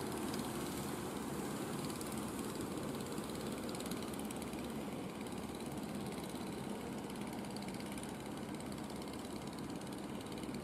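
Engines of motorized wooden fishing boats running steadily as the boats head out to sea, a continuous drone with a fast even pulse.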